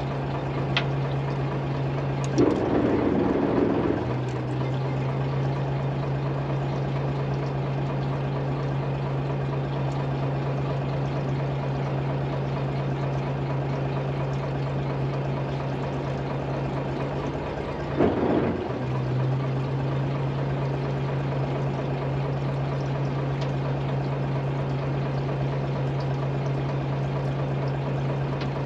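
Chartered fishing boat's engine running with a steady low hum under rushing water. Two louder rushes break in, one about two seconds in lasting over a second and a shorter one near eighteen seconds.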